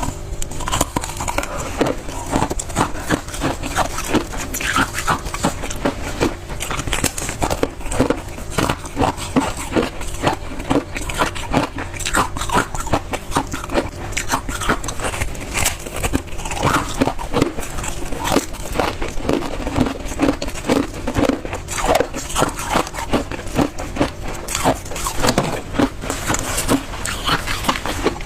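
Close-miked biting and chewing of refrozen freezer-frost ice, crunching in a steady rhythm of about two chews a second.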